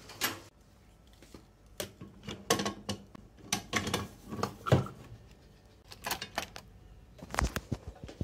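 Irregular clicks and knocks of an Anova sous vide precision cooker being handled and clamped onto the rim of a metal pot, with a heavier thump near the end.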